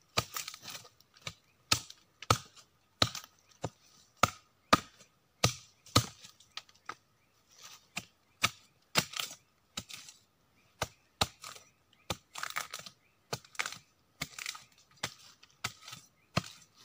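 Machete chopping into the fibrous trunk of a palm stump: a long run of sharp, uneven chops, roughly two a second.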